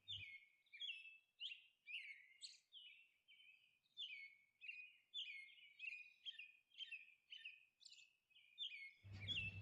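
Faint bird chirping: short high chirps repeating about two a second, many dropping slightly in pitch.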